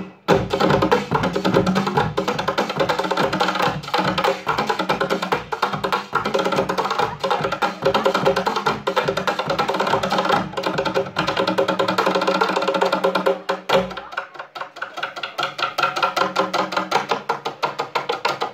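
Two drummers playing fast bucket drumming on plastic buckets and barrels: a dense run of rapid strikes over a deep beat of about three a second. About 14 seconds in, the deep beat stops and lighter, fast hits carry on.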